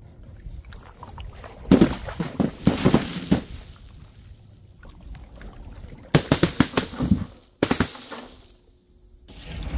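Dropped containers crashing and smashing: two bursts of rapid clattering impacts, about two seconds in and again about six seconds in.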